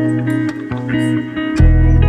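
Background music: a plucked guitar melody over a bass line that drops out and comes back about one and a half seconds in.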